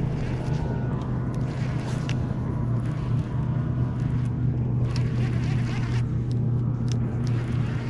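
Bass boat's motor running steadily, a constant low hum, with a higher hiss that comes and goes.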